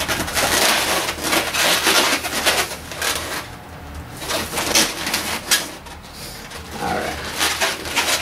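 Inflated latex 260 twisting balloons rubbing against each other and against the hands, squeaking and rustling in irregular spurts as the balloon figure is handled and adjusted.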